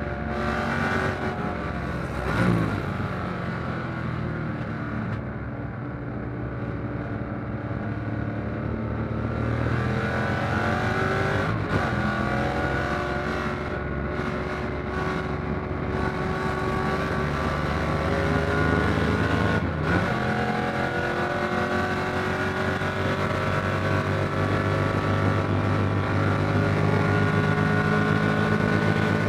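1957 Corvette's fuel-injected 283 V8 race engine pulling hard under racing acceleration, heard from inside the cockpit. Its note climbs in pitch over several seconds at a time, broken briefly three times, about two seconds in, near twelve seconds and near twenty seconds.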